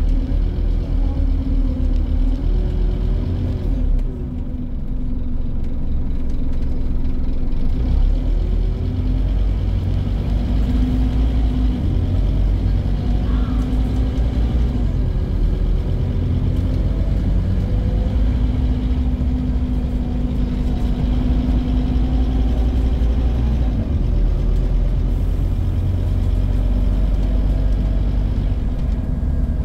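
Scania N230 bus's five-cylinder diesel engine running under way, heard from inside the bus, with a deep rumble and an engine note that rises and falls as the bus speeds up and eases off.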